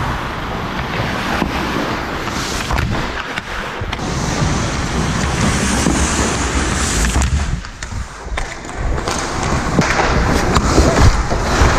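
Ice hockey play heard from inside the goal: skate blades scraping and carving the ice, with scattered sharp knocks of sticks, puck and goalie gear. It grows louder toward the end.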